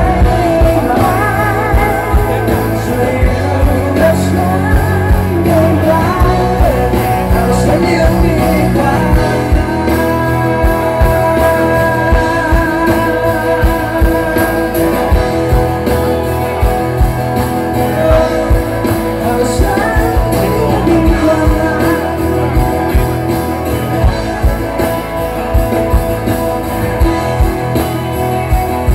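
Live band performance of a Thai pop-rock song: a male singer's amplified vocal over acoustic and electric guitars and a steady drum beat, heard through the stage PA.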